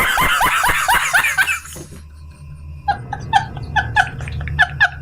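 Laugh sound effect of a man laughing in rapid, high-pitched bursts. A fast run of 'ha's is followed, after a short lull, by a second, more spaced-out run of about five bursts a second.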